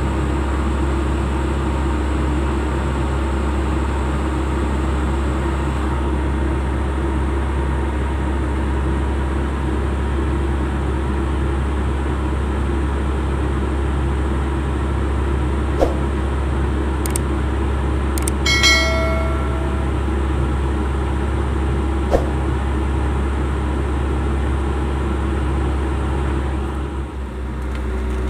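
Steady low engine-like drone, with one short pitched call or honk about two-thirds of the way through and a couple of faint clicks.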